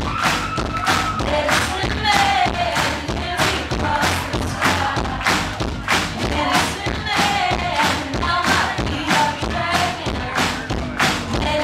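Live indie pop band played loud through a club PA: a heavy, steady drum beat of about three hits a second under electric guitars, keyboard and sung vocals.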